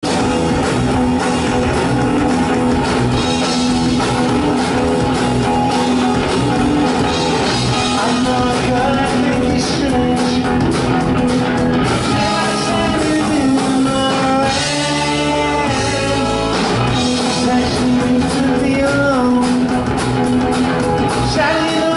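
A rock band playing live: electric guitar, bass guitar and drum kit, with a sung lead vocal.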